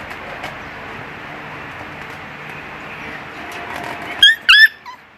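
Siberian husky letting out two short, high-pitched yelps in quick succession about four seconds in, over a steady background hiss.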